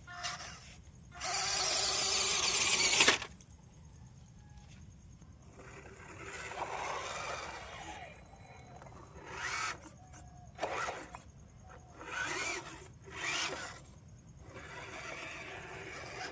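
Toy RC car's small electric motor whirring in bursts as it is driven. The longest and loudest burst, about two seconds, comes about a second in, then come several short revs that rise in pitch.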